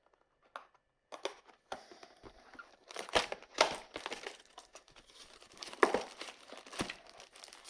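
Plastic and foil packaging crinkling and tearing as a sealed trading-card booster box is opened, starting about a second in, with several sharper crackles.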